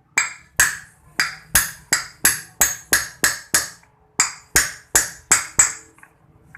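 Hammer blows on metal parts of a scooter's rear CVT pulley during reassembly: about fifteen sharp strikes at roughly three a second, each ringing briefly, with a short pause a little past the middle.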